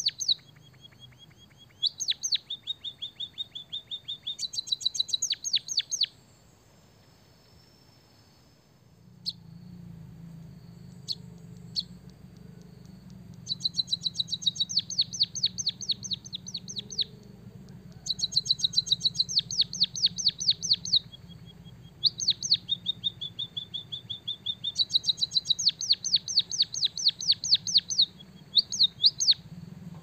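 White-headed munia singing a canary-style song: fast runs of repeated high notes and chattering trills, some phrases held as a steady buzzing tone, with a pause of about three seconds a quarter of the way in.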